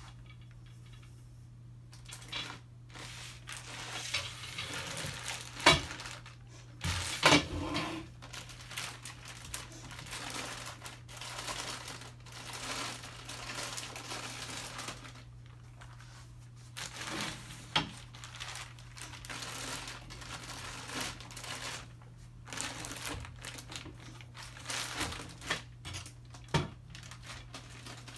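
Clear plastic wrapping around a large paper roll crinkling and rustling as it is handled, with a few sharp knocks, the loudest two about six and seven seconds in, over a steady low hum.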